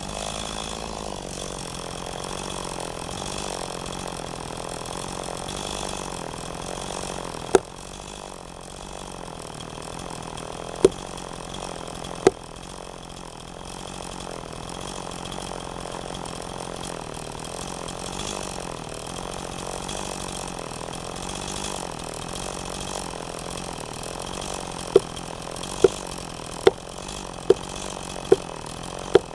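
An engine running steadily, its pitch wavering slightly. There are a few sharp clicks, then near the end a run of clicks a little faster than one a second.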